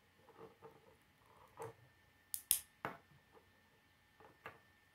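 K'nex plastic pieces clicking and snapping together as they are fitted by hand: a string of sharp clicks, the loudest cluster about two and a half seconds in.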